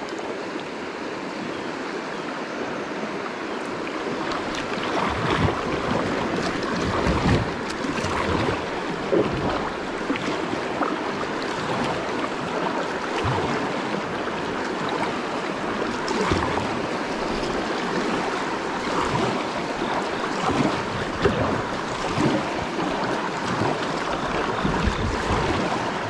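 Creek water rushing over a shallow riffle around a kayak, with irregular splashes from a kayak paddle dipping in. The rush grows louder a few seconds in as the kayak moves into the faster water.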